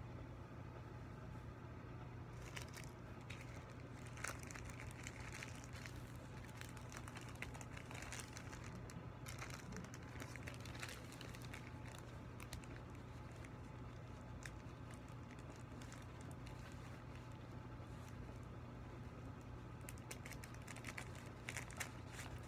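Thin foil of a deflated Mylar balloon crinkling in irregular crackles as it is handled and unfolded, over a steady low hum.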